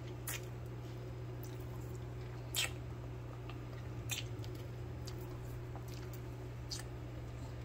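A steady low-pitched hum with four short clicks or ticks spread across it, the loudest about two and a half seconds in.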